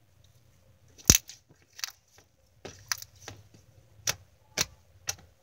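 Glossy slime being stretched and pressed by hand, making a string of about eight sharp clicks and pops, the loudest about a second in.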